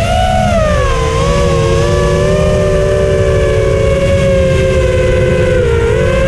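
Four brushless motors (T-Motor F40 Pro II, 1600 kV) of a 230 mm FPV quadcopter whining through 6-inch three-blade props, several slightly different pitches together, heard from a camera on the quad itself. The pitch rises briefly at the start, drops about a second in, holds fairly steady, then dips and climbs again near the end, over a steady low rumble.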